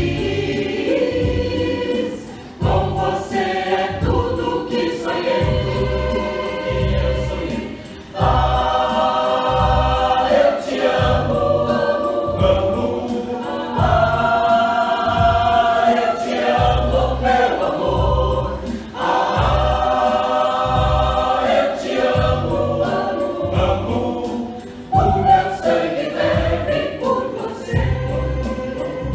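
Mixed choir of men and women singing an upbeat song over a steady low beat.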